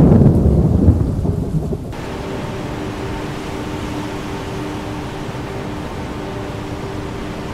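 Sound-design thunder rumbling low and loud, fading and then cut off about two seconds in. It gives way to a steady rain-like hiss with a faint, even droning hum.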